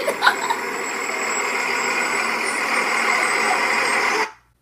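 Bus engine running, a steady noise that cuts off suddenly about four seconds in.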